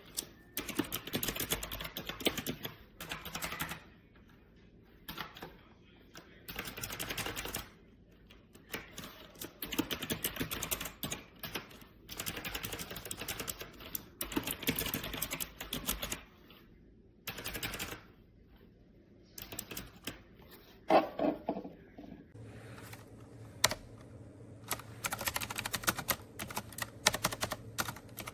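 Clicky blue-switch keys of a typewriter-style mechanical keyboard being typed on in quick runs of one to two seconds with short pauses between them. About two-thirds of the way through there is a brief pitched sound, the loudest moment.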